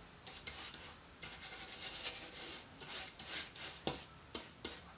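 Paintbrush scrubbing oil paint onto canvas in repeated short, uneven strokes.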